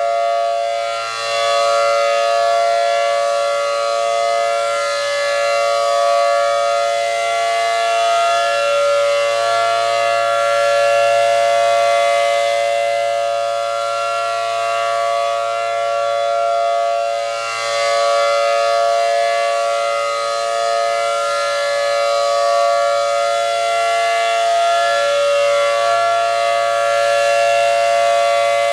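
ACA Allertor 125 rotating siren with a 10/12-port rotor sounding a steady alert: a loud held two-tone chord. It swells and fades as the horn turns, with dips about a second in and again some 16 seconds later.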